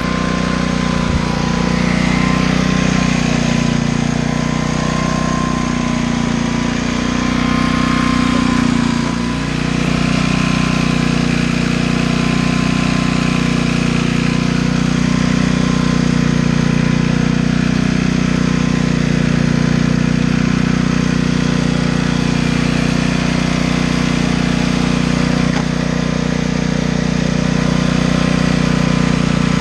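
Dayton portable generator's engine running steadily at constant speed, its note wavering briefly about eight to nine seconds in before settling again.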